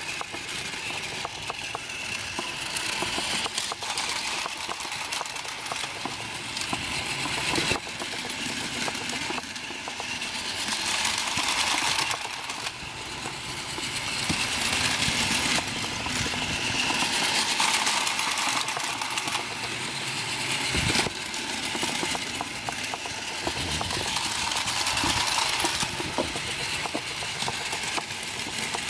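Battery-powered Plarail toy train, an E6-series Super Komachi, running on plastic track: a steady small-motor and gear whir with fast rattling clicks, swelling and fading several times.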